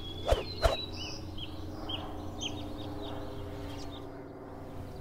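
Small birds chirping in short repeated high notes over a steady low hum, with two sharp knocks in quick succession about half a second in.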